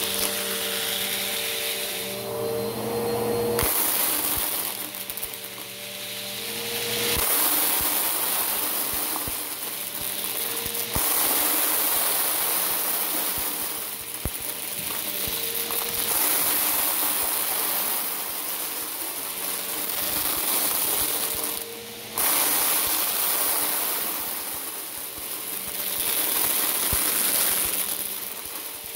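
Bissell Power Force Helix upright vacuum running over carpet and sucking up loose plastic beads, which rattle and click through the nozzle. The suction noise swells and fades about every four seconds.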